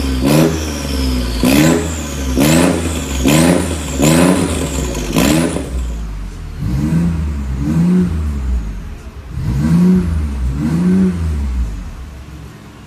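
BMW i8's 1.5-litre turbocharged three-cylinder engine, breathing through a Fi Exhaust valvetronic catback and catless downpipe, revved at standstill in six quick blips, each rising sharply and falling back. After about six seconds come four softer, duller revs heard from inside the cabin.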